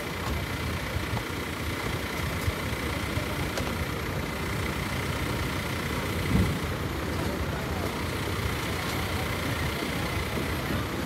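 Tour coach's diesel engine idling steadily, a low rumble, with a brief thump about six seconds in.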